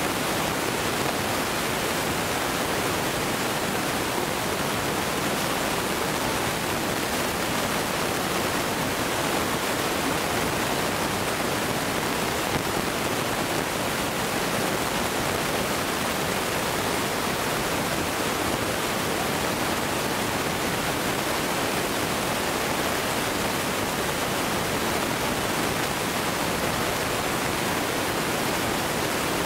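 Steady, even rushing hiss that holds one level throughout, with no bangs or crackles from fireworks.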